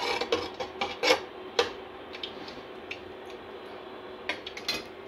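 Slotted spatula scraping and knocking against the bottom of an aluminium pot as whole cardamom and cloves are stirred in oil, several strokes in the first second and a half. Then a faint steady hum with a few light clicks near the end.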